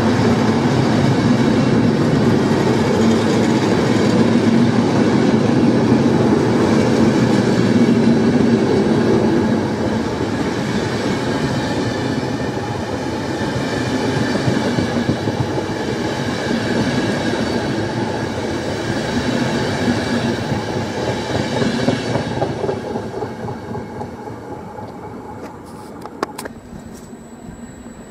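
Trenitalia InterCity passenger coaches rolling past on the rails with a steady rumble and rattle of wheels on track. The noise fades away about 22 to 24 seconds in as the last coach clears, and a few sharp clicks follow near the end.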